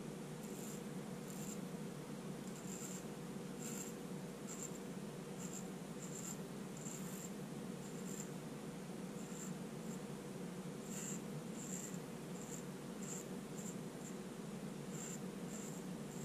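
Freshly honed vintage straight razor scraping whiskers off a face in short strokes, a crisp rasp about once a second, over a faint steady low hum. The whiskers are not well softened, and the edge is still cutting them.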